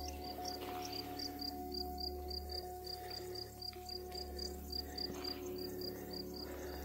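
Cricket chirping in an even rhythm, about four to five short high chirps a second, over soft steady sustained tones.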